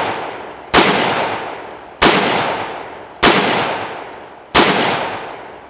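Four shots from a small handgun, about a second and a quarter apart, each followed by a long fading echo.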